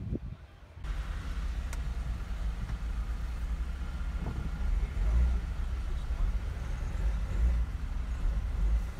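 Steady low vehicle rumble heard from inside a car's cabin while it sits in traffic behind a bus. The sound starts abruptly just under a second in.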